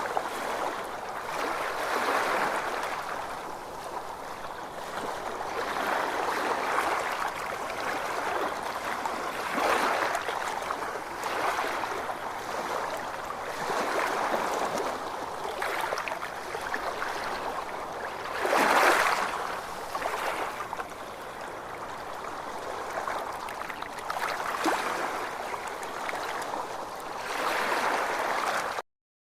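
Ocean waves washing in, the noise of the water swelling and easing every couple of seconds, with one bigger surge about two-thirds of the way through. The sound cuts off abruptly just before the end.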